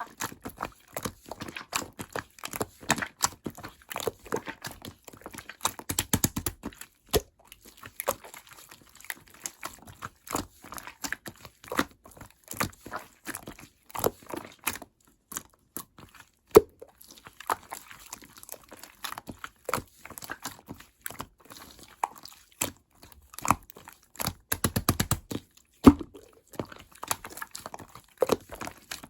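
Hands kneading and squeezing slime, giving a rapid, irregular run of sticky clicks, pops and crackles, with a few denser clusters of pops.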